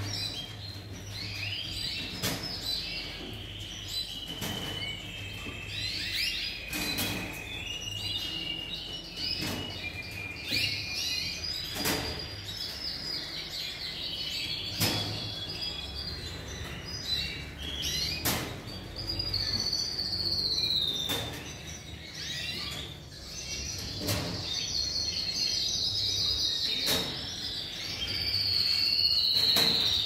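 Yorkshire canaries in a breeding room chirping and singing, overlapping warbles and rolling trills going on all the while. Sharp clicks come every second or two as plastic water drinkers are pulled off the wire cage fronts and clipped back on.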